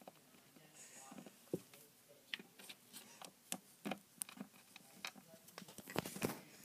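Quiet, irregular light clicks and taps of small plastic toy figures being handled and moved on a shelf, with a louder cluster of knocks near the end.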